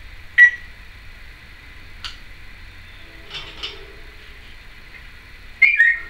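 Timneh African grey parrot making short, high electronic-sounding beeps and clicks: a single beep about half a second in, a few soft clicks and quiet mutters in the middle, and a louder two-note beep, the second note slightly lower, near the end.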